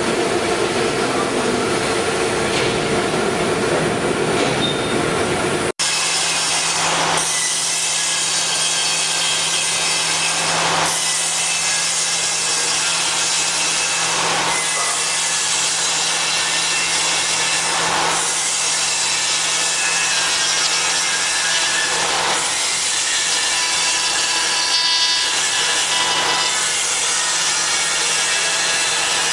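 A steady machine whine, then about six seconds in an abrupt cut to a CNC router spindle milling wood: a steady cutting noise that swells roughly every three to four seconds.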